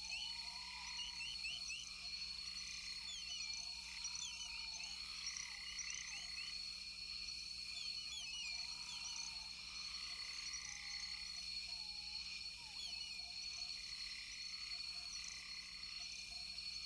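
Nature ambience of frogs and insects calling: a steady high drone under many quick high chirps, with a short arching lower call every couple of seconds.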